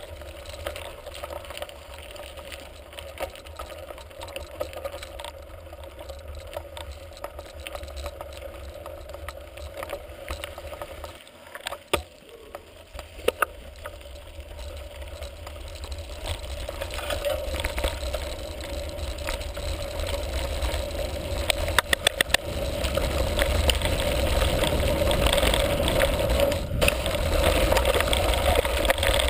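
Mountain bike rolling over a loose gravel and stone track: tyres crunching on stones and the bike rattling, with wind rumbling on the microphone. It grows louder through the second half as the speed rises, with a few sharp knocks from bumps.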